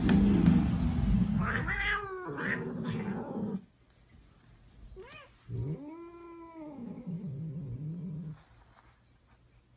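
Domestic cat caterwauling: a loud, rough yowl for the first few seconds, then after a short pause one long drawn-out wail that rises and falls in pitch, about three seconds long.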